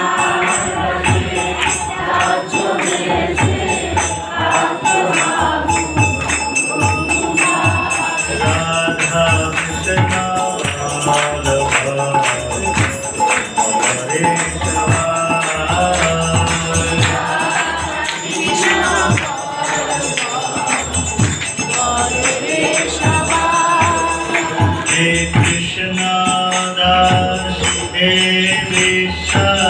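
Devotional kirtan: group singing of a chant, with hand cymbals clashing a steady, fast beat and a drum thudding underneath.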